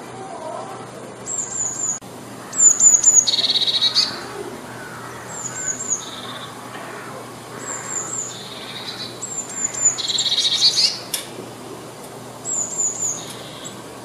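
Eurasian blue tit singing: about six short phrases, each a few high, thin falling notes, several of them ending in a lower rapid trill.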